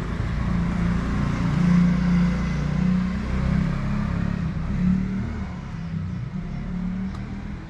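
A motor vehicle's engine running close by, loudest about two seconds in and then fading away.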